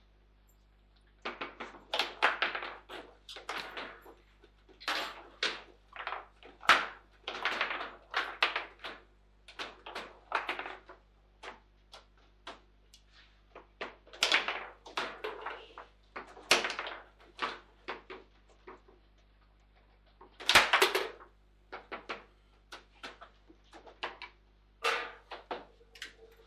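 Foosball table in play: the ball clacks and knocks against the player figures and the table walls in quick, irregular runs with short pauses between them, with one loud hit near the end.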